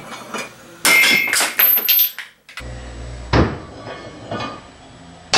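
Plastic medicine bottle cracking and bursting under a small shop press driven by a salvaged treadmill linear actuator. Several loud cracks come from about one to two seconds in. A short low motor hum follows, then a sharp crack at about three and a half seconds; the bottle's side blows out.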